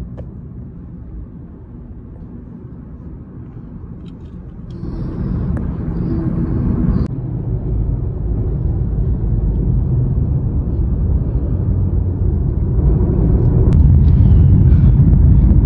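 Steady low rumble of road and wind noise heard from inside a moving car, getting louder about five seconds in and again near the end.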